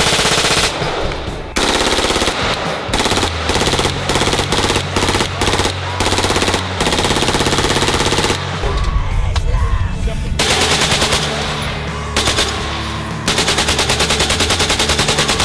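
Full-automatic gunfire from a Browning Automatic Rifle in repeated bursts, some short and some longer, with a long, even, rapid burst near the end. Background music with a steady bass runs underneath.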